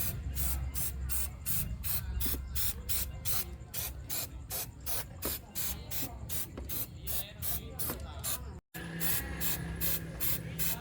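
Paint spraying on restored farm machinery: short hissing bursts repeating about three times a second over a low steady hum. The sound cuts out for a moment near the end, then the bursts resume.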